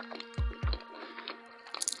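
Close-miked ASMR eating sounds: many small wet mouth clicks, with two low thumps about half a second in and a cluster of sharp crackly clicks near the end, over soft steady background music.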